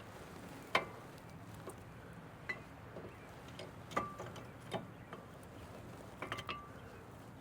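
Scattered light metal clinks and taps, a few of them ringing briefly, as brake parts are handled and fitted during a truck brake reassembly.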